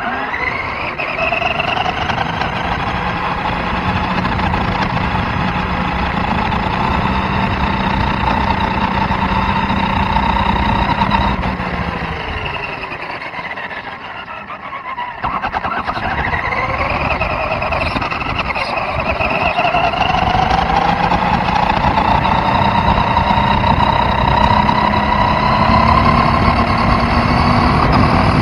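Radio-controlled truck's small fuel engine heard from a camera mounted on the truck, climbing in pitch as it speeds up, easing off and dropping about halfway through, then climbing again.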